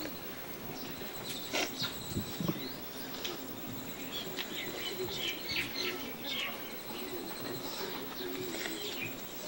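Small birds chirping in short, repeated calls over a faint, steady high-pitched whine, with a few soft knocks between about one and a half and two and a half seconds in.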